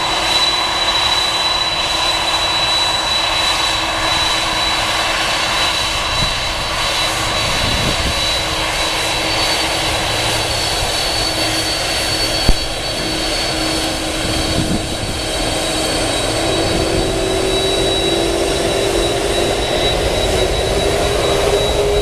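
Jet engines of a Boeing 747-400 running with a steady whine. From about two-thirds of the way through, a tone climbs in pitch as the engines spool up for the takeoff roll. A single sharp click comes just past halfway.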